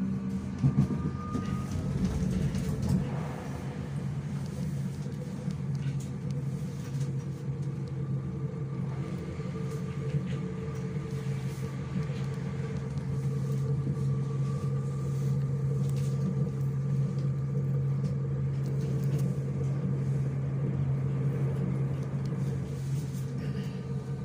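Interior of a Hamburg U-Bahn DT4 train car running, with a steady rumble and a constant electrical hum from the drive equipment. A couple of short knocks come in the first second.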